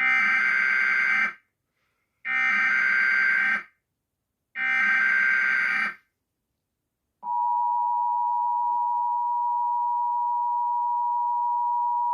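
Emergency Alert System tones: three bursts of the SAME digital data header, each about a second and a half long with short gaps between, then from about seven seconds in the steady two-tone attention signal. Together they are the opening of a National Weather Service tornado warning broadcast.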